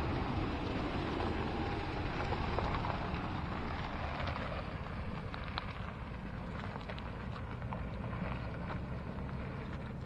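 Four-wheel drive moving slowly along a rough dirt track: a steady low engine and tyre rumble with scattered small clicks and crackles of stones under the tyres.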